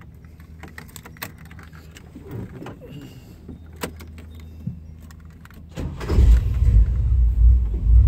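Keys jingling and clicking in the ignition, then about six seconds in the 1991 Chevy Silverado C1500's engine cranks briefly and fires up on the first try, running loud from then on. It starts readily now that its timing has been set.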